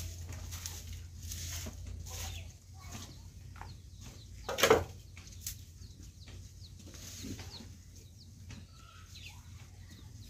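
A short bundle broom and hoe scraping over bare earth in repeated strokes, with chickens clucking. One brief, much louder sound about halfway through.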